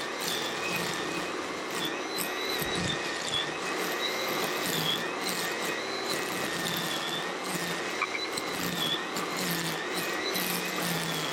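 Cordless Milwaukee QUIK-LOK string trimmer running: a steady high motor whine that wavers slightly in pitch, over the hiss of the spinning line.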